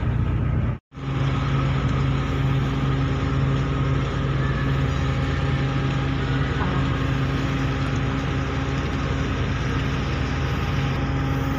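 Ferry's engines running steadily with a low hum, under an even rushing noise, heard from the open deck. The sound cuts out for an instant about a second in.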